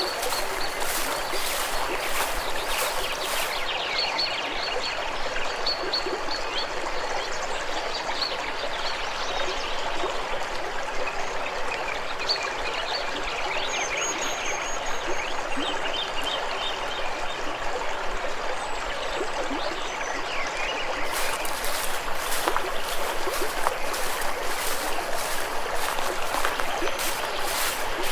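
Water in a stream running steadily, a continuous rushing and trickling, with short high chirps scattered over it.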